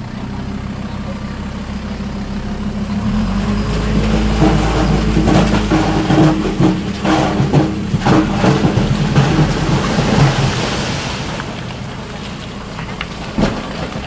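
A heavy diesel engine runs and rises in level while a load of loose stone rumbles and clatters for several seconds, then dies away. One sharp knock comes near the end.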